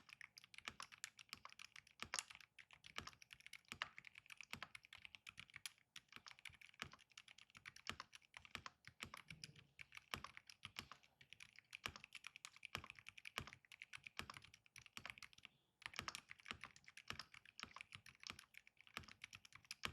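Fast, continuous typing on a Keychron V6 Ultra mechanical keyboard with factory-lubed Keychron Silent Red linear switches and double-shot PBT OSA-profile keycaps. The keystrokes are quiet and dense, with a short pause about 16 seconds in.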